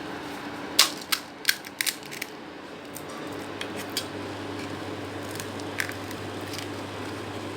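Sharp clicks and knocks of kitchen utensils being handled, several in quick succession in the first couple of seconds and a few scattered ones later, over a steady low hum.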